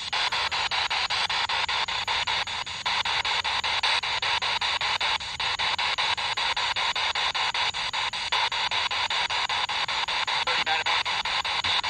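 Spirit box sweeping through radio stations: a steady hiss of radio static broken by rapid, even clicks several times a second as it jumps from frequency to frequency.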